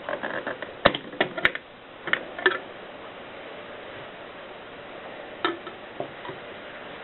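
Mercedes Superba typewriter's typebars striking: a quick, uneven run of sharp key strikes, a pause of a few seconds, then two or three more strikes.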